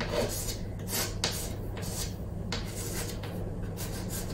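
A stick of chalk scratching on a chalkboard surface as a word is written, in a series of short scraping strokes.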